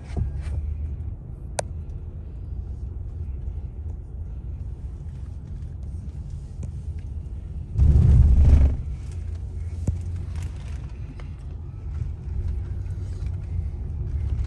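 Road and engine noise inside a moving Infiniti SUV's cabin: a steady low rumble. About eight seconds in, a louder rush of rumble lasts about a second.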